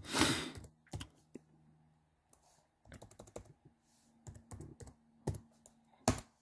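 Laptop keyboard keys tapped while typing a file name, scattered single keystrokes and short clusters of clicks. A brief rush of noise at the very start is the loudest moment.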